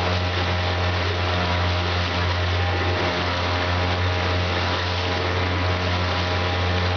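Small outboard motor running at a steady speed, driving a loaded canoe, with water splashing along the hull.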